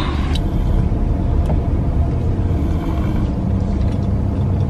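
A car's engine running, a steady low rumble heard from inside the cabin, with a couple of faint clicks.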